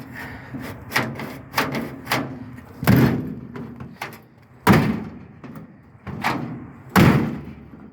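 Metal clicks and clunks from a 1939 Chevrolet coupe's door as its freshly reinstalled outside door handle and latch are worked. Three heavier clunks come about two seconds apart among lighter clicks.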